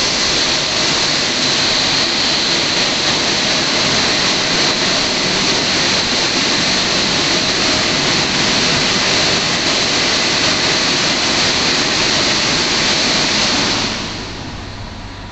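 WashTec SoftCare 2 Pro rollover car wash's dryer blowers running: a steady, loud rush of air with a high hiss, dying away near the end as the drying stage finishes.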